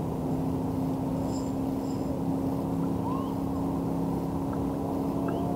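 Steady low hum of a motor, with a few faint bird chirps.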